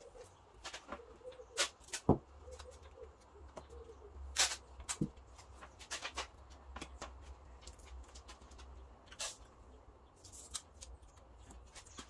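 Scattered clicks, taps and short rustles of hands working masking tape against a clear plastic hood deflector and the van's bonnet. The two loudest clicks come about two seconds in and about four and a half seconds in.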